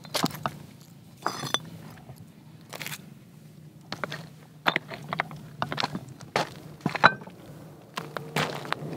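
Sandstone blocks knocking and scraping against each other as they are handled and stacked, with footsteps crunching on stony ground, over a low steady hum. One short ringing clink about seven seconds in is the loudest.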